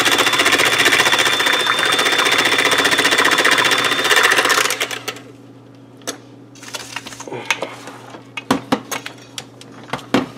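A KitchenAid electric hand mixer beating eggs and oil in a glass measuring cup, running steadily with a thin high whine, then switching off a little under halfway through. After that, a few light clicks and knocks.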